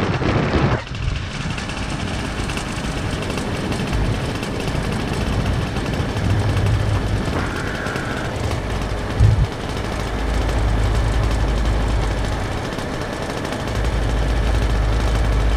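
Steady rush of air and low rumbling buffeting on the camera microphone during a paraglider flight, with a brief thump about nine seconds in.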